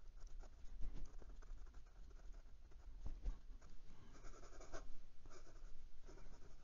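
Fountain pen with a broad JoWo nib writing cursive on lined notebook paper: faint, irregular sounds of the nib moving across the paper stroke by stroke.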